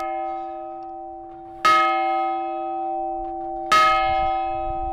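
Large bronze bell on a wheel-and-yoke stand rung by hand: already ringing at the start, its clapper strikes again twice, about two seconds apart, and each stroke leaves a long ring of several steady tones.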